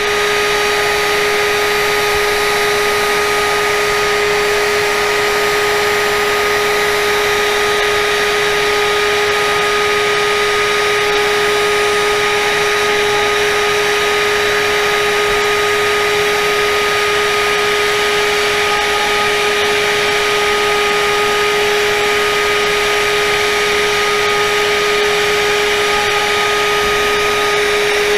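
The router spindle of a Yeti Smartbench CNC runs with a steady high whine and hiss as its V-bit carves lettering into vinyl-wrapped MDF.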